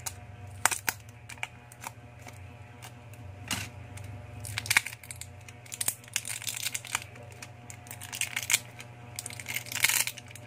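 Metal tweezers clicking and plastic tape crinkling in short crackly spells as a smartphone battery's tab is picked loose and peeled, over a steady low hum.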